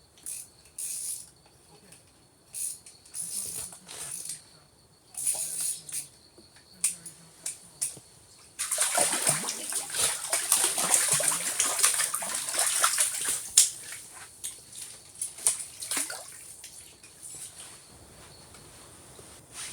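Water splashing in an ice-fishing hole: a few short splashes, then about five seconds of continuous splashing and sloshing, then a few more short splashes.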